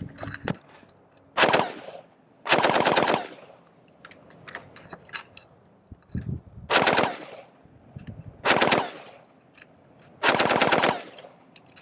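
Original Vietnam-era M60 machine gun in 7.62 NATO firing five short bursts of automatic fire, with pauses of a second or more between them.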